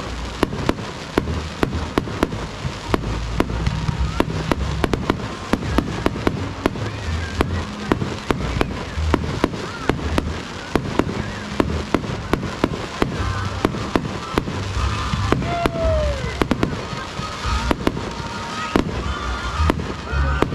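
Fireworks display: a dense, continuous barrage of sharp bangs and cracks, several a second, with a brief falling whistle about fifteen seconds in.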